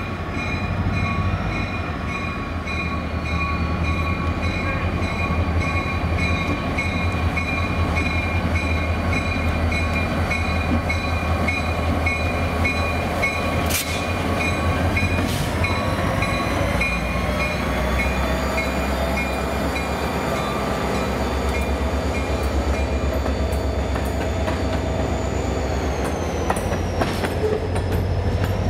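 Buckingham Branch Railroad diesel road-switcher locomotive and two grain hopper cars passing slowly, with a steady low engine hum and wheels running on the rails. A thin high squeal from the wheels wavers in pitch, and there is a sharp click about 14 seconds in.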